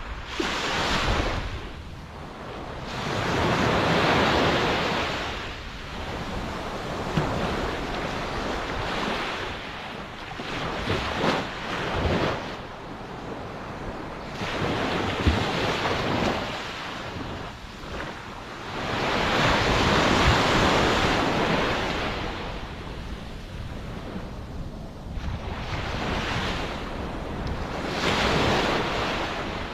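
Ocean surf: waves breaking and washing in, a continuous rush of water that swells and falls away every few seconds, with a low wind rumble on the microphone underneath.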